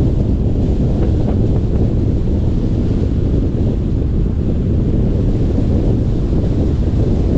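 Steady low wind rumble buffeting the microphone of a camera on a moving car, blended with road noise from the drive.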